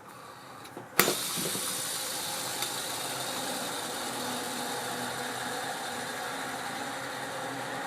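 Abu Garcia Ambassadeur 5500C baitcasting reel: a sharp click about a second in as the spool is set spinning, then a steady whirring hiss of the free-spinning spool.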